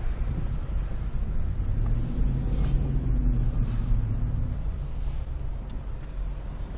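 Vehicle cabin rumble from an engine running and tyres rolling over an unplowed, snow-covered road. A steadier engine hum comes up about two seconds in and fades out about four and a half seconds in.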